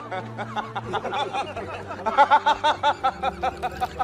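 A person laughing, a quick run of short repeated 'ha' sounds about five a second, loudest about two seconds in.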